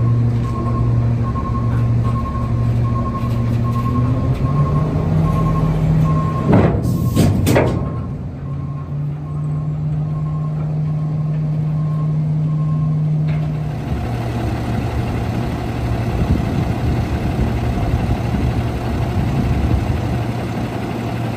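Garbage truck's Cummins ISL diesel engine running the hydraulics as the packer panel cycles, with an alarm beeping steadily about once a second. The engine speeds up about four seconds in, a brief loud rush of noise comes about seven seconds in, and near fourteen seconds the beeping stops and the engine settles to a steady idle.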